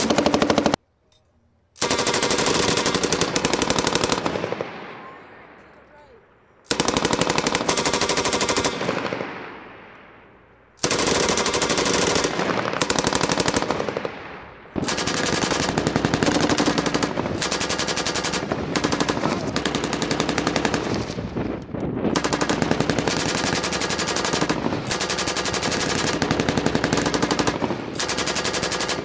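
M240 7.62 mm belt-fed machine guns firing bursts, several guns along the firing line. Twice the fire breaks off and its echo dies away over about two seconds; from about halfway on the firing is nearly continuous.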